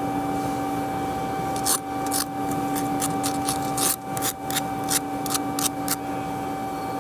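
A wire brush scrubs a freshly laid 9-chrome stick weld bead in quick scraping strokes, a few a second, starting about two seconds in. A steady electrical hum runs underneath.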